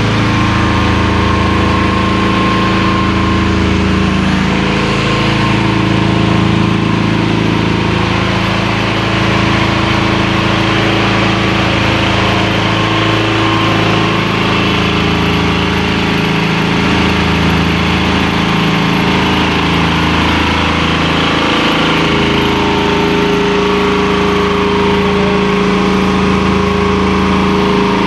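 Reconditioned Hamworthy V250 main air compressor running steadily on a test run, a loud even mechanical drone with no change in speed.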